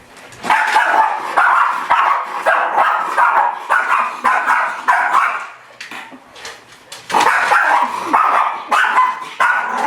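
Miniature schnauzer barking at its own reflection in quick runs of about two barks a second. There are two bouts with a pause of about two seconds between them.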